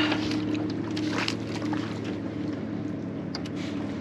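Steady hum of a boat's electric trolling motor holding the boat over the fish, with a few short scuffling noises in the first second and a half as a crappie is reeled in and lifted aboard.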